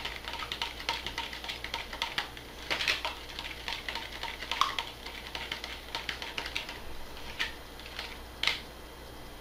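A spoon stirring a thinned marinade in a small plastic tub, clicking and scraping irregularly against the sides.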